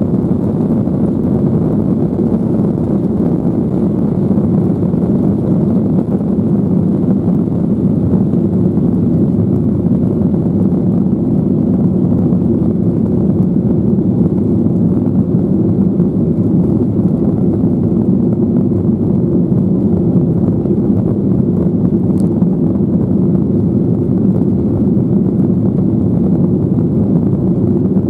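Cabin noise inside a Boeing 737-800 during takeoff: its CFM56-7B turbofan engines at takeoff thrust, heard through the fuselage as a steady, deep rumble, as the jet leaves the runway and climbs.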